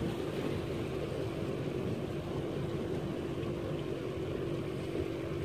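Boat motor running steadily as the boat moves across the lake, a constant hum over wind and water noise.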